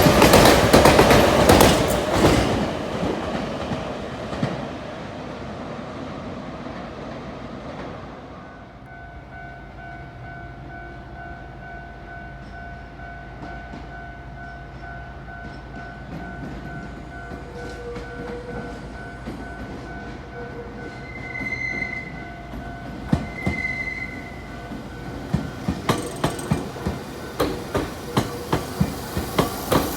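A Nankai Koya Line train passing close by, loud at first and fading away over several seconds, leaving a quieter steady hum. Near the end a regular series of sharp clicks starts, about two a second.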